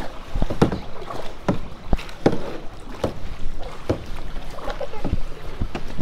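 Paddling a plastic kayak: irregular knocks of the paddles against the hull mixed with paddle strokes in the water, about one or two a second, over a low wind rumble on the microphone.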